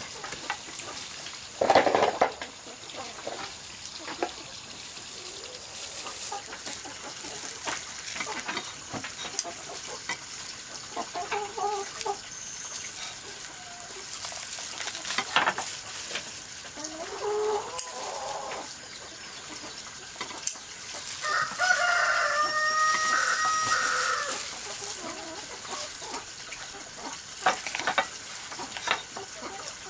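A rooster crows once, a long call about three-quarters of the way through, with other shorter chicken calls earlier on. A few sharp snips of kitchen scissors cutting through cooked chicken and bone, the loudest about two seconds in.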